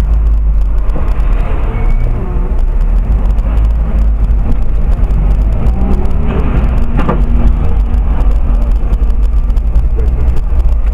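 Cabin noise of a car driving in city traffic, recorded by a dashcam: a loud, steady low rumble of engine and road, with a short sharp sound about seven seconds in.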